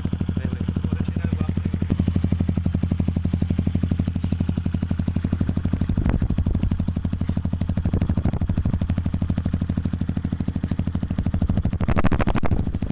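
Yamaha WR155's 155 cc single-cylinder four-stroke engine idling steadily through an aftermarket Norifumi exhaust pipe, with a fast even run of exhaust pulses and a brief louder burst near the end.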